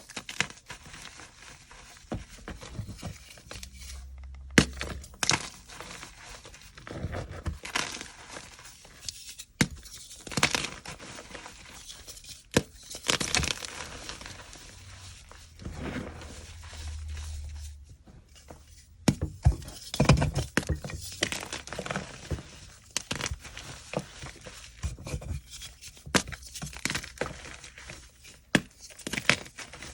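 Gym chalk blocks and reformed chalk being crushed and crumbled by hand. Irregular crunching and crumbling, with sharp snaps as pieces break apart.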